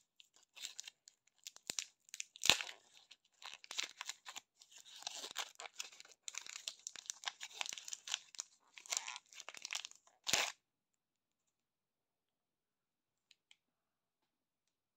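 A lollipop's crinkly printed wrapper being peeled and torn off by hand: a run of crackles and rustles, with a sharp loud crackle about two and a half seconds in and a last loud one about ten seconds in, where the sound stops.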